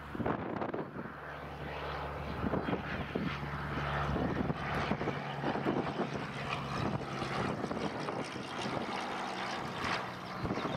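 Single-engine piston propeller aircraft, a Cessna high-wing trainer, droning steadily as it flies past at low height. The pitch of the drone shifts partway through.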